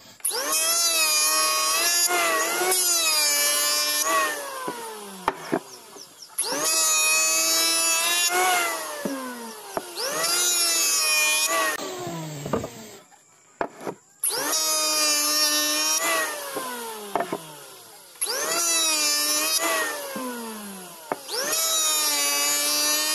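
Electric hand planer shaving the face of a hardwood board in about six passes: each time the motor whines up to speed, its pitch sags while the blades cut, and it winds down after the trigger is let go.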